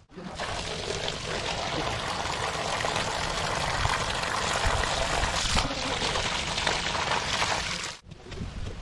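Water pouring from an open pipe outlet and splashing onto wet ground as a duck carcass is rinsed by hand under the stream. It runs steadily and cuts off suddenly near the end.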